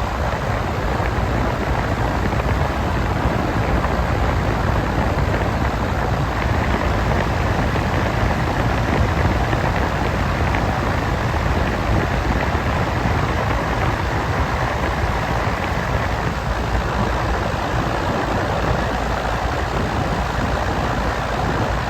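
Outdoor condensing unit of an unbranded 2018 R-410A air conditioner running: a steady, even rushing sound of the condenser fan moving air through the unit, deepest in the low end.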